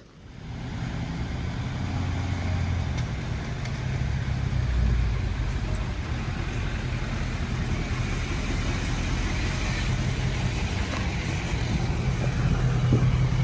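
A truck engine running steadily at low revs.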